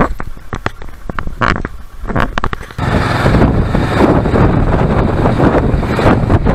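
Wind buffeting a motorcycle-mounted camera's microphone in uneven gusts over the engine and road noise of a Kawasaki Versys 650. About three seconds in, the sound cuts to a louder, steady rush of wind and low rumble as the bike rides a dirt road.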